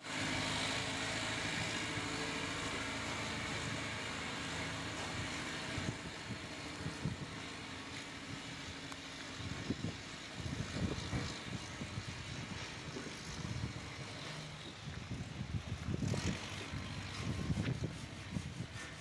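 Steady machinery hum in an outdoor work yard. From about six seconds in come irregular scraping and knocking as timber planks are worked by hand.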